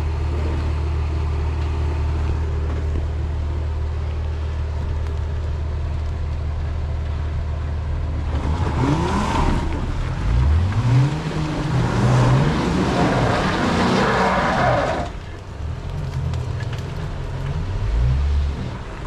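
Jeep engine idling steadily, then revved hard several times in a row for about six seconds under load as the Jeep tries to climb out of a hole on the trail, then dropping back toward idle.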